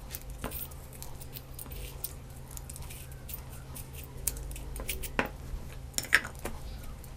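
Light handling sounds at a steel mixer-grinder jar: dried red chillies dropped in on grated dry coconut with soft scattered clicks, then a couple of sharper clicks about five and six seconds in as the clear lid is set on the jar. A low steady hum runs underneath.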